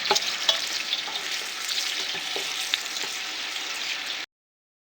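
Chopped onions sizzling in hot vegetable oil in a pan as they sauté and soften, with a few light clicks of stirring. The sound cuts off abruptly a little after four seconds.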